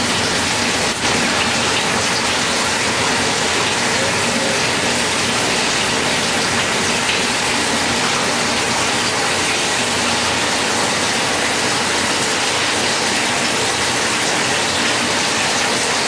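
Water spraying steadily inside a semi-automatic rotary bottle washer: jets rinse glass bottles set upside down on the turntable and splash against the splash curtain.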